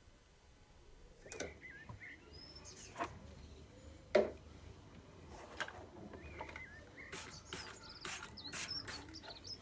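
Small birds chirping in short, quick rising and falling notes, among a string of sharp clicks and knocks. The loudest knock comes about four seconds in, and the knocks come thicker near the end.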